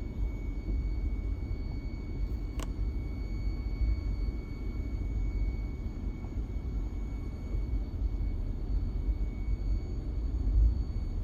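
A vehicle's engine running with a steady low rumble and a faint steady high whine. There is a single sharp click about two and a half seconds in.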